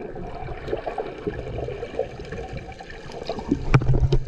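Muffled water noise heard through a submerged camera: a steady gurgling wash with small crackles of bubbles. Near the end come several louder low thumps and knocks as the swimmers kick and splash.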